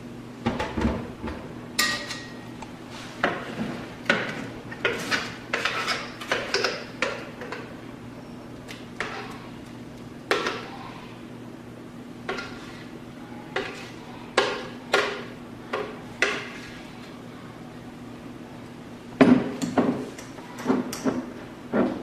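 Irregular knocks and clinks of a plastic blender jar and a drinking glass as a thick smoothie is poured out, then a quick cluster of clinks near the end from a long bar spoon stirring in the glass.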